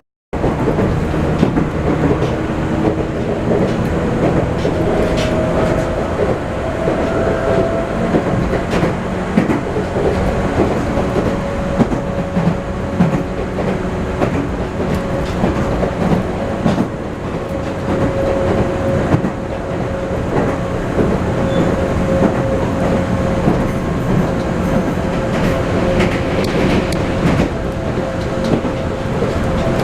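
Chichibu Railway electric train running along the line, wheels clicking over the rail joints under a steady rumble, with a steady whining tone that rises slightly a few seconds in.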